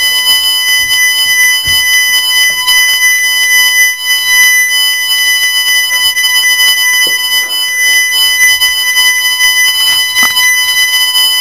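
Viper fire alarm sounder sounding its second tone: a continuous, very loud, high-pitched tone.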